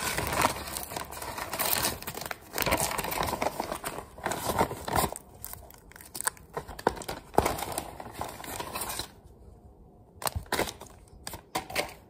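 Paper packaging of a new pump seal kit being torn open and crumpled, rustling and crinkling in irregular bursts, with a quieter pause and a few sharp clicks near the end.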